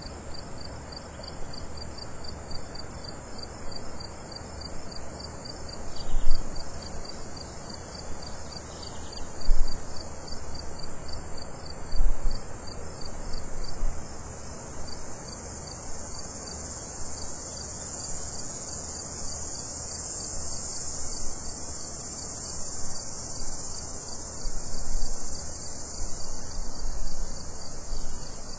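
Cicadas shrilling in a steady, high, continuous buzz, with a faster pulsing chirp under it for the first half; the buzz swells a little after the middle. A few low thumps come through now and then.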